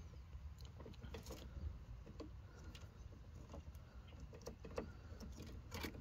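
Faint rustling and scattered light clicks of thin automotive wires and their plastic connectors being handled and sorted, over a low steady background rumble.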